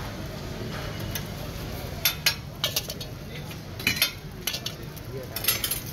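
Metal spatula clinking and scraping on a tawa griddle where bun kababs are being fried, in small clusters of sharp strikes about two seconds in, around four seconds and near the end, over a steady background hum.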